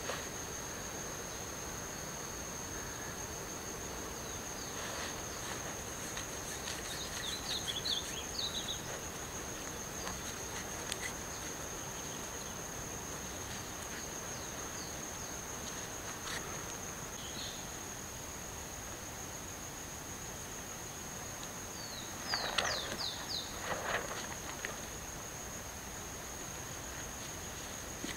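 Insects trilling steadily in one high, unbroken tone. Short high chirps and brief rustles come about seven seconds in and again after about twenty-two seconds.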